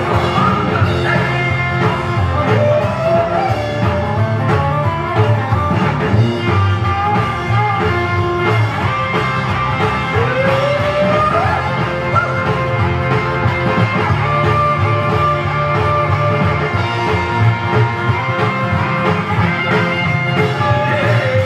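Rock and roll record playing.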